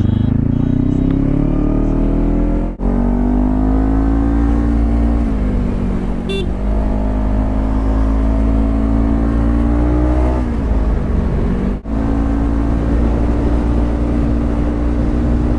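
Sport motorcycle with a Yoshimura aftermarket exhaust accelerating through the gears. The engine note climbs, then cuts off sharply at an upshift about three seconds in and again about twelve seconds in, before settling at a steady cruise.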